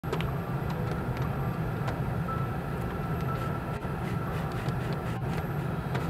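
Car interior on a rainy drive: a steady low rumble of the car running, with faint scattered ticks of raindrops on the windshield.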